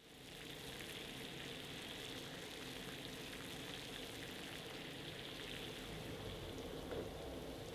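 Water at a rolling boil in a small saucepan on a gas burner: a steady bubbling hiss.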